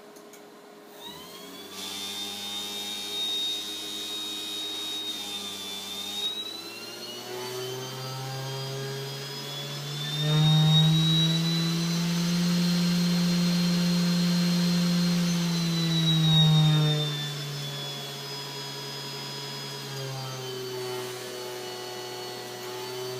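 400 W PWM-controlled CNC spindle motor starting up about a second in and running with a steady whine. Its pitch climbs as the speed override is raised and is highest and loudest in the middle, drops back down, then starts rising again near the end.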